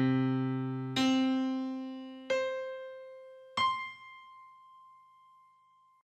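Four piano-like keyboard notes struck one after another, each about an octave higher than the last, each ringing and dying away, the last fading out slowly. A stereo panning effect shifts the sound from the left channel to the right.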